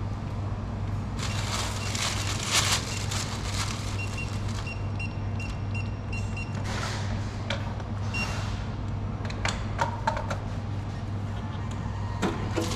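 Short high electronic beeps repeating in an even run for a couple of seconds, typical of a card payment terminal, with another beep a little later. Rustling comes and goes over a steady low hum.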